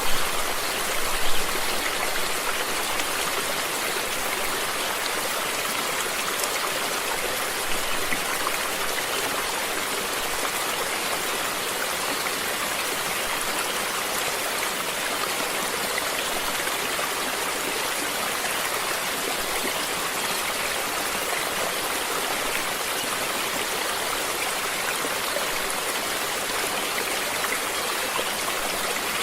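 Stream water flowing steadily, a continuous rushing and trickling.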